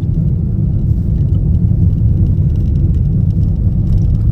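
Steady low rumble of a moving car, engine and road noise.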